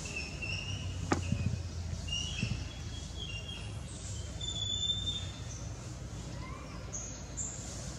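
Birds chirping in short, high calls scattered through, over a steady low hum, with one sharp click about a second in.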